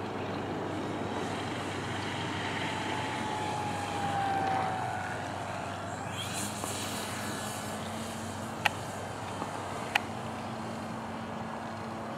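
Radio-controlled model airplanes' motors and propellers: a high whine slowly falls in pitch over several seconds, then a lower steady drone takes over. Two sharp clicks sound near the end.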